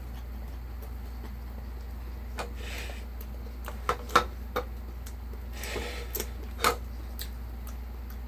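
Handling of food and dishes at a meal: scattered sharp clicks and knocks, the loudest about four seconds in, with two short spells of rustling, over a steady low hum.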